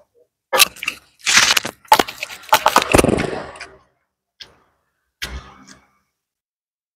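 Crispy fried gourami cracking and crunching: a run of loud crackles over about three seconds, then two lighter cracks later on.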